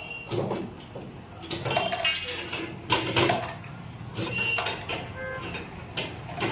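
Metal folding bed being worked: irregular knocks and clanks of its frame, with a few short squeaks from its joints.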